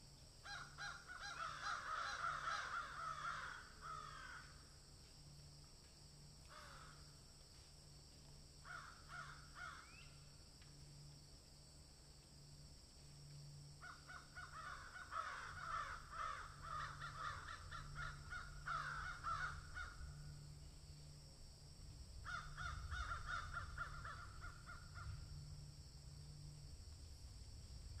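Raspy, rapidly pulsing animal calls in five bouts: two long ones of several seconds and three shorter ones, over a faint low hum.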